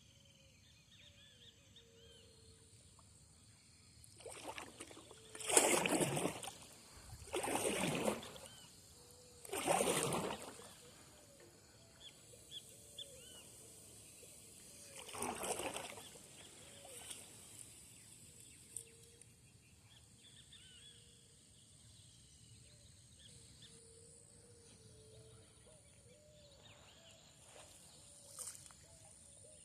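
Outdoor nature ambience: a steady high insect buzz with small scattered bird calls, broken in the first half by four loud bursts of rushing noise, each about a second long, and a shorter one near the end.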